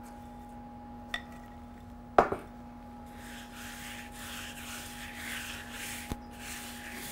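Hands smearing and rubbing an olive-oil herb paste over a raw beef strip loin roast, a soft rhythmic rubbing from about three seconds in. A single sharp knock about two seconds in.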